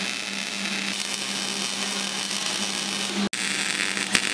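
Arc welding on a steel go-kart frame: a steady crackling hiss from the welding arc over a low hum. It drops out for an instant about three seconds in, then carries on.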